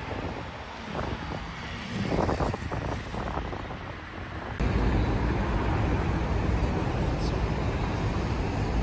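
City street traffic noise with wind on the microphone. About halfway through it switches abruptly to a louder, steady low rumble.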